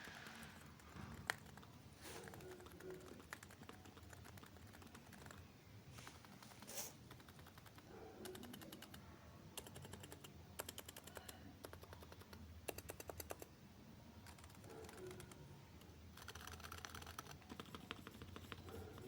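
Typing on a Realforce R3 TKL keyboard with Topre electrostatic capacitive switches: quiet keystrokes in runs of rapid strokes with short pauses between, and one sharper single click about a second in.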